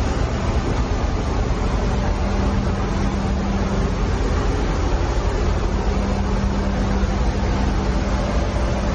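Steady ship engine-room machinery noise: a constant deep rumble with hiss above it, and a faint steady hum joining in about two seconds in.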